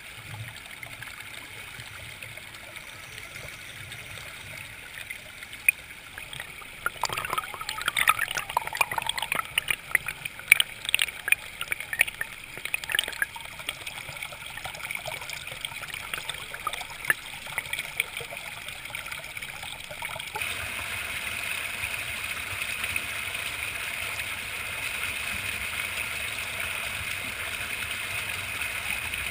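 Shallow rocky creek running over stones. A spell of sharper splashing and trickling comes in near the middle. About two-thirds of the way in, the water turns to a steadier, louder rush.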